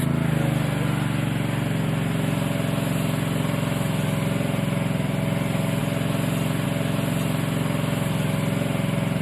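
Gas-powered pressure washer running steadily, its small engine droning at a constant speed under the even hiss of water spraying from a 25-degree nozzle.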